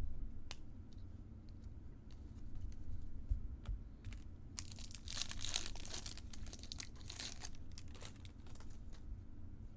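A few light clicks, then a few seconds of crinkling and tearing from a foil trading-card pack wrapper being ripped open and crumpled, beginning a little before halfway.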